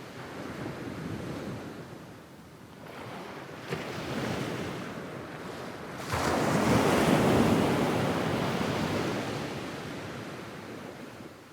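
Medium waves breaking and washing up on a sandy beach in a regular rhythm: two smaller washes, then a bigger wave breaks suddenly about six seconds in and its wash slowly fades away.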